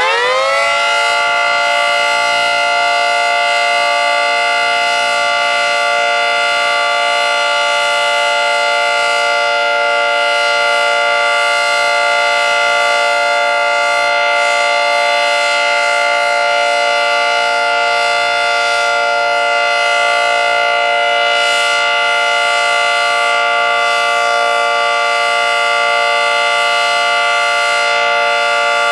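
Federal Signal 2T22 dual-tone mechanical tornado siren sounding the steady Alert signal for its weekly test. It finishes winding up in the first second, then holds a loud, steady two-tone chord.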